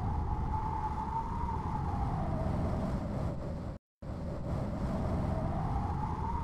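Whistling wind ambience: a single wailing tone slowly rising and falling over a low rumble, cutting out briefly about four seconds in.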